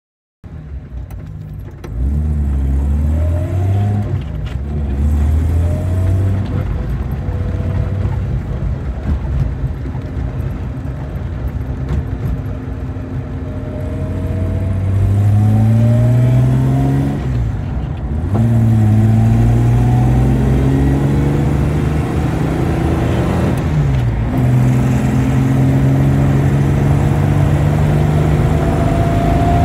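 Jaguar E-Type engine heard from inside the car, accelerating through the gears. Its pitch climbs, drops at an upshift about 17 seconds in and another about 24 seconds in, then holds at a steady cruise over road noise.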